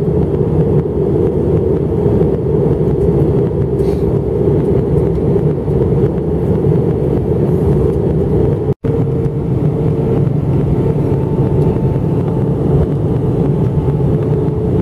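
Steady cabin noise of an Airbus A319 airliner in descent, heard from a window seat beside the wing: a deep, even rumble of engines and airflow. The sound cuts out for an instant about nine seconds in.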